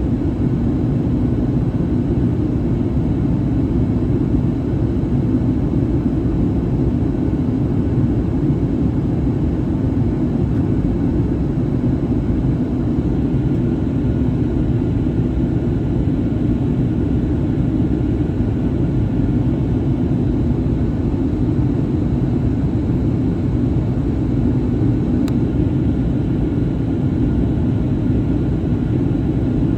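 Steady, loud cabin rumble aboard a Boeing 737-800, from its CFM56-7B engines and the airflow, with faint steady tones above the deep rumble.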